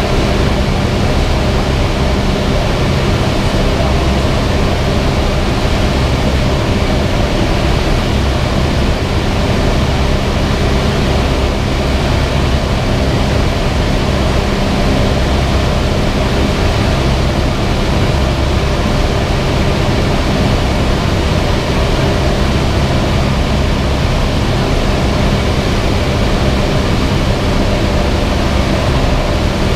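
Cessna 172's piston engine and propeller droning steadily, with no change in pitch.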